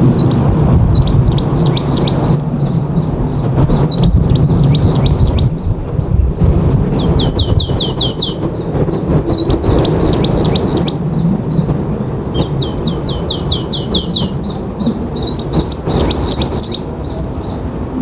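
Small birds chirping repeatedly, with twice a quick run of falling notes, over a loud steady rush of strong wind.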